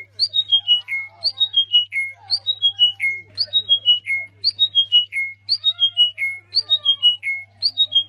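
Songbird singing a descending run of five or six clear whistled notes, repeated about once a second, over a steady low hum.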